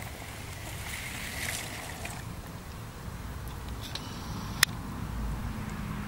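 Low rumble of wind and handling noise on an outdoor microphone, with one sharp click about four and a half seconds in.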